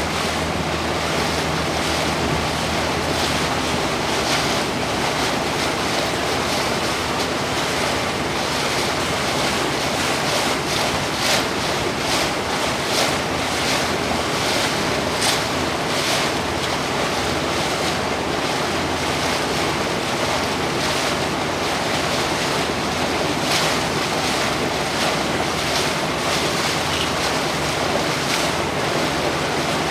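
Small motorboat under way: a steady engine hum under the rush and splash of water along the hull, with wind on the microphone.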